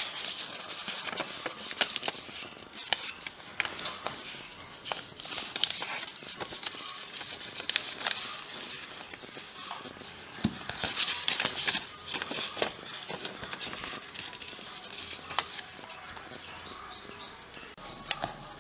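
Sheet of paper being handled, folded and creased by hand: irregular crackling and rustling with many short sharp clicks, busiest about a second in, around five seconds in and again around ten to thirteen seconds in.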